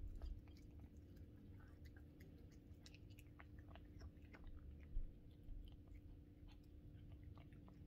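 Kitten chewing and licking wet cat food from a plate: faint, irregular small clicks and smacks, over a steady low hum. One low thump about five seconds in.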